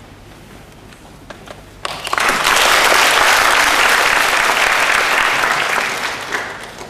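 Audience applauding, starting suddenly about two seconds in, holding steady, and dying away near the end.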